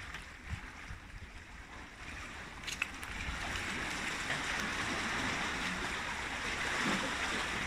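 Sea water washing and sloshing against breakwater rocks: a steady rushing hiss that grows louder about three seconds in. A single sharp click comes just before it.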